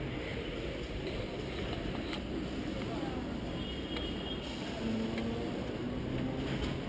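Hong Kong double-decker tram running along its street track. A steady low rumble of wheels on rails and the rattling car body, heard from inside the tram.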